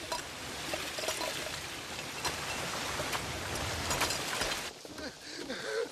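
Heavy rain pouring down, with water rushing over rocks and scattered sharp drop splashes; the downpour noise drops away sharply near the end.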